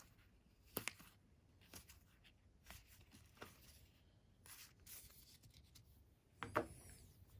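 Board game cards being handled: faint rubs and flicks as cards slide through the hands, with a slightly louder sound near the end as cards are set down on a play mat. Quiet overall.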